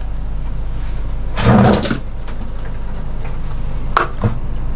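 Hands handling a plastic-wrapped parcel on a wooden tabletop over a steady low hum: one dull thud about one and a half seconds in, and two light knocks near the end as a small object is set down.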